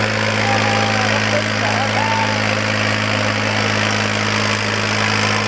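Farmtrac 60 tractor's diesel engine running hard under load at a steady pitch, dragging three harrows with its front wheels lifted.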